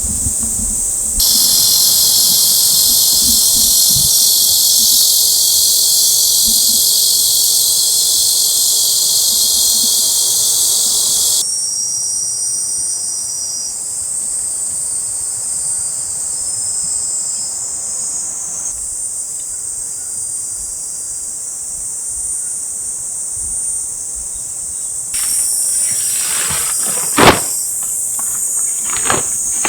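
A dense, steady chorus of summer insects, high in pitch, that changes abruptly several times, swelling louder at about one second in and dropping back at about eleven seconds. A single sharp knock near the end is the loudest sound, among a few fainter clicks.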